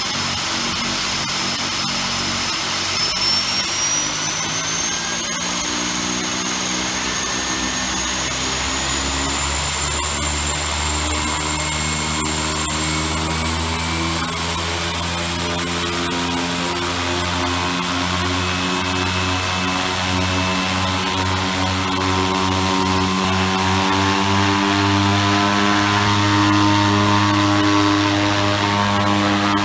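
Pratt & Whitney PT6A-28 turboprop on a Piper Cheyenne II running on the ground with its cowling off, propeller turning. A high turbine whine steps up in pitch several times as the engine speeds up, over a deeper propeller drone that climbs slowly and grows a little louder near the end.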